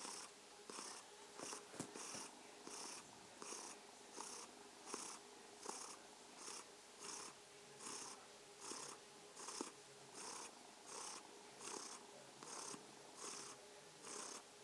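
Domestic cat purring steadily, the purr swelling and easing with each breath in an even rhythm of about three pulses every two seconds.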